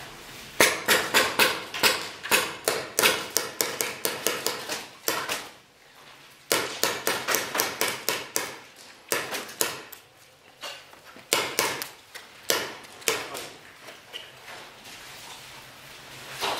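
Rapid paintball fire: volleys of sharp cracking shots and paintball hits, about four to five a second, in several bursts with short lulls between them.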